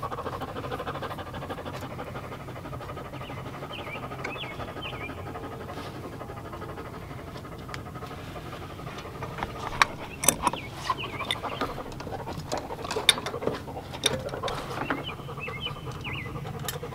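Dog panting steadily close to the microphone. From about ten to fifteen seconds in, a run of sharp metallic clicks as the crimped ground-cable terminal is worked onto its stud on the backhoe frame.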